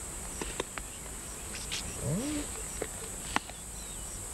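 Spotted hyenas at a piece of meat: a few sharp clicks and snaps, and about two seconds in one short rising call from a hyena, over a steady high hiss.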